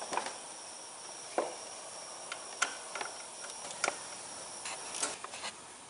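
Irregular light clicks and metallic taps of an 8 mm socket driver working loose the screws of the chopper screen on a Kohler engine's flywheel fan, about eight in all, over a steady high-pitched tone.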